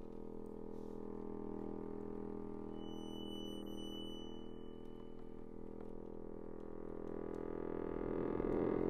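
Chromatic button accordion holding a sustained low cluster chord, several close reed tones sounding together; it swells louder over the last second or so, the tones beating against each other.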